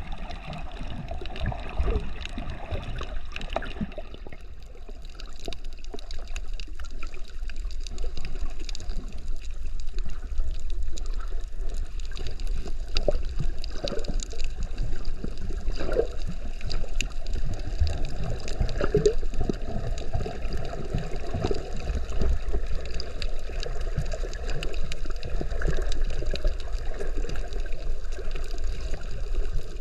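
Water gurgling and sloshing around a snorkeler's camera, with scattered clicks and a steady low rumble.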